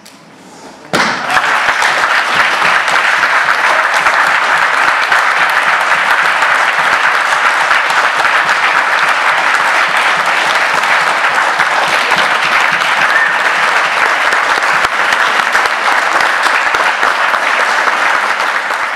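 Applause from spectators, starting suddenly about a second in and holding steady and loud throughout, greeting the end of a grappling match.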